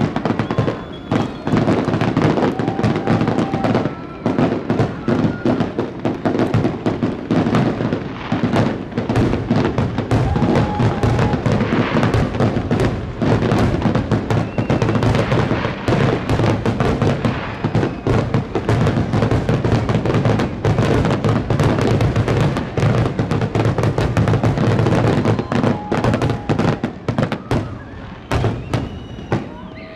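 Aerial fireworks finale: a dense, unbroken barrage of shell bursts and crackle that thins out only in the last second or so.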